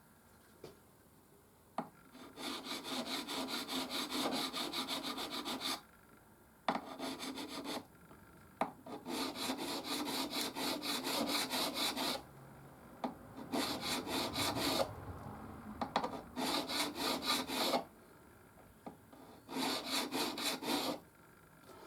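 Fret-crowning file scraping back and forth over guitar frets in quick, rhythmic strokes, in six short bouts with brief pauses between them as the file moves from fret to fret. The frets are being rounded over after levelling.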